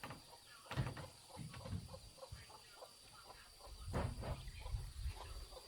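Chickens clucking with many short, repeated calls. Two louder bursts of low noise come about a second in and about four seconds in.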